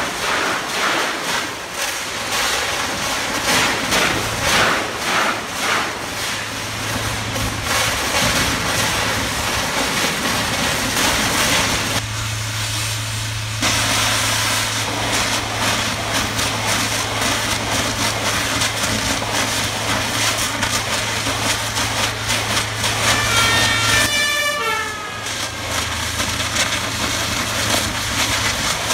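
Demolition excavator breaking up the concrete deck of a road bridge: its engine running steadily under a stream of knocks and crunching from the concrete being broken. About two thirds of the way through, a short series of falling tones sounds briefly.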